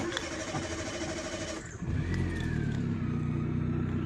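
Chevrolet Spark's engine being started: the starter motor cranks for about a second and a half, then the engine catches and settles into a steady idle. The start shows the no-start fault cured after the ECM's rusty ground connections were cleaned and an extra ground wire added.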